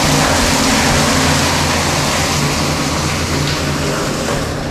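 Engine-driven irrigation water pump running steadily: a constant low engine hum under an even rushing hiss.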